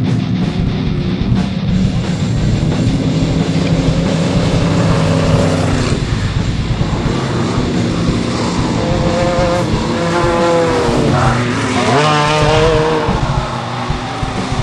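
Desert race truck engine running hard at speed, mixed with rock music that carries a wavering melody in the second half.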